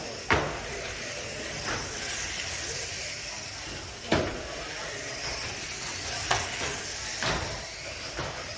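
Electric radio-controlled ministock cars racing on carpet: a steady high hiss and whine of motors and tyres, broken by about four sharp knocks of collisions, the loudest just after the start.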